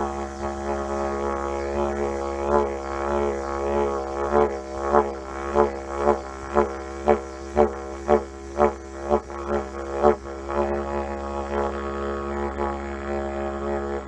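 Yidaki (didgeridoo) playing a steady low drone. From a couple of seconds in until about ten seconds in, the player adds a run of rhythmic accented pulses, about two a second, then returns to the plain drone.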